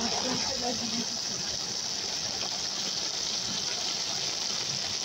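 Leafy greens frying in hot oil in a metal wok, a steady sizzling hiss.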